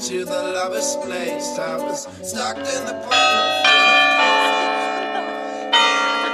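Background song for the first three seconds, then church bells strike about four times, each stroke ringing on and slowly dying away.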